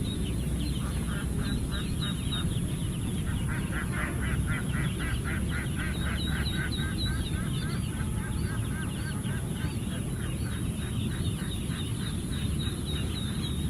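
Ducks calling: many short quacks in quick succession, over a steady low background noise.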